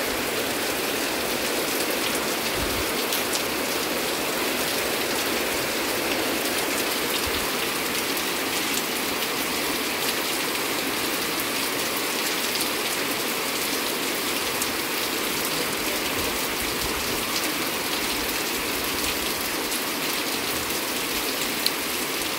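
Heavy rain falling steadily: a dense, even hiss with scattered ticks of individual drops.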